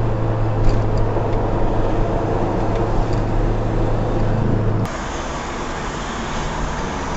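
Engine and road noise from inside a moving vehicle, a steady drone with a strong low hum. About five seconds in it switches abruptly to a thinner, brighter engine and traffic noise.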